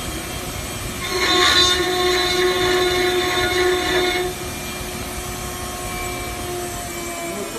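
CNC router spindle with a small end mill running with a steady whine. About a second in it bites into the curved wooden workpiece and the sound grows louder and rougher with cutting noise for about three seconds, then drops back to the plain spindle whine as the bit lifts out.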